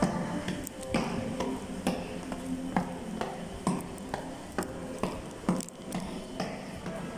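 Footsteps on a hard tiled floor: a sharp click about once a second, with fainter steps between, over a steady low hum.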